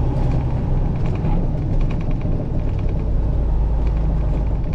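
Truck engine and road noise heard from inside the cab: a steady low rumble, with a few faint rattling ticks about halfway through.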